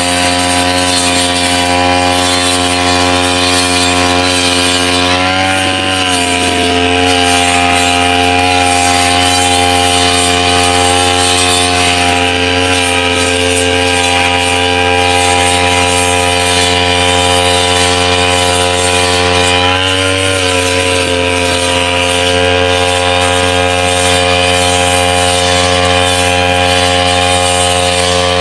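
Backpack brush cutter running at steady high revs while cutting tall, wet grass; its engine note dips briefly twice under the load of the grass, about five seconds in and again about twenty seconds in.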